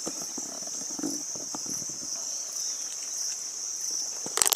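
A steady, high-pitched chorus of crickets or similar insects, with a cluster of sharp clicks near the end.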